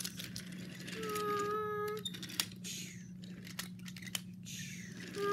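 Wooden toy train cars clicking and clacking as they are pushed along a wooden track, with a steady horn-like tone held for about a second, starting about a second in.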